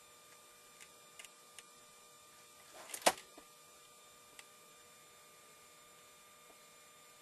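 A few faint clicks and one sharp click about three seconds in, over a steady electrical hum.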